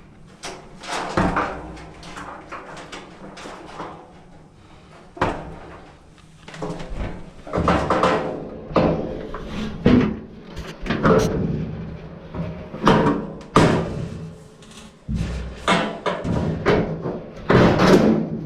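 Frigidaire electric dryer running with a string of irregular knocks and thumps, about one every half second to a second, some with a short metallic ring, heavier in the second half. The dryer was under repair for grinding noises.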